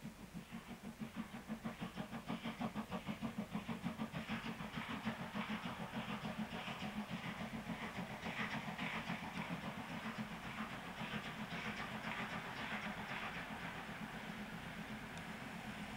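DB class 23 steam locomotive 23 105, a two-cylinder engine, working a passenger train with a quick, even beat of exhaust. The beat grows louder over the first few seconds as the train comes past, then runs on more steadily and eases a little toward the end as it goes away.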